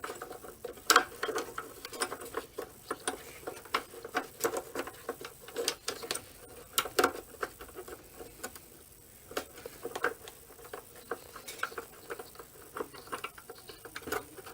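Irregular small clicks and taps of hands working a cap on over a D2S xenon bulb fitted in a headlight projector, as parts knock against the housing.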